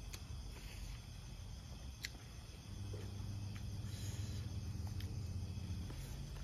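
Insects chirping steadily in the night air, with a faint low hum that comes up about halfway through and a few soft clicks.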